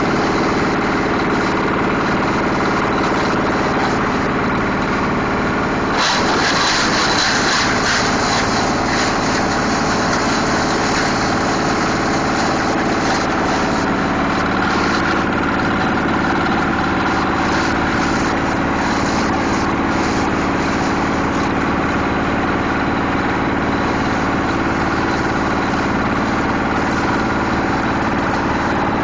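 Plastic shredder machine running with a steady drone. About six seconds in it turns harsher and noisier, with rapid irregular clatter over the drone.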